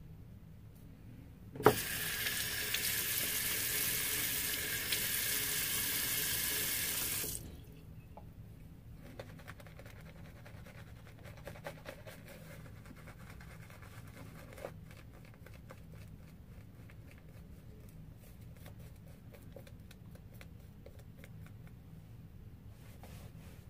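A water tap opens with a click about two seconds in, runs steadily into a sink for about six seconds, then cuts off abruptly. After it come faint scratchy strokes of a Semogue 1470 boar-bristle shaving brush working lather on the face.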